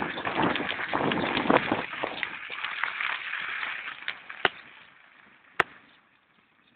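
Thunder of an approaching storm rolling away: a crackling rumble that starts suddenly, is loudest at first and fades out over about five seconds. A single sharp click comes near the end.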